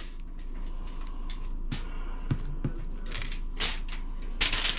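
Aluminium foil crinkling and rustling in irregular short crackles as a ham steak is laid on it and handled, with a louder cluster of crackles near the end.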